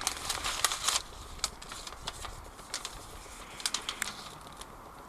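Irregular sharp clicks and ticks, a quick cluster in the first second and another about four seconds in, with a faint low rumble underneath.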